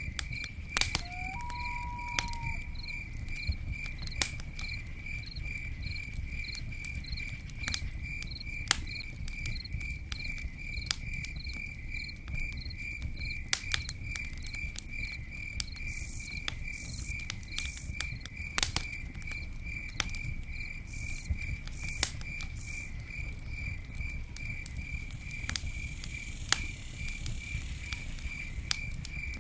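Campfire burning with a low rustle and scattered sharp crackles and pops, while a cricket chirps steadily about two or three times a second. A brief whistled note sounds about a second in.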